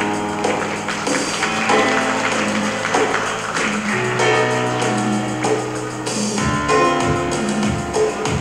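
Instrumental show music with long held bass notes, sustained tones and light percussion. About six seconds in, the bass changes to a pulsing rhythm.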